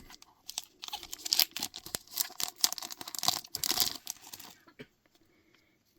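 Booster pack wrapper crinkling and tearing as it is opened by hand, a dense crackly rustle that stops about four and a half seconds in.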